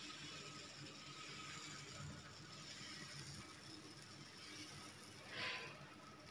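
Faint scraping of a steel ladle spreading dosa batter in circles on a hot tawa, with the batter softly sizzling as it sets; a brief louder hiss near the end.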